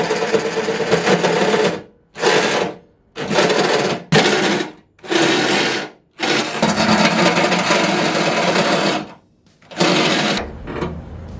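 Cordless DeWalt reciprocating saw cutting through the sheet steel of a pickup tailgate, run in about seven short bursts with brief pauses between, the longest about two and a half seconds.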